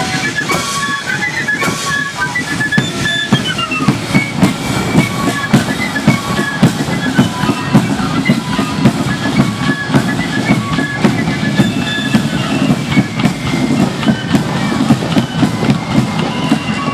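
Marching flute band playing a tune: flutes carry the melody over steady snare and bass drumming. The flute melody stands out most in the first few seconds, after which the drums are the loudest part.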